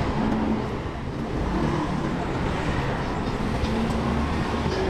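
Steady street traffic rumble.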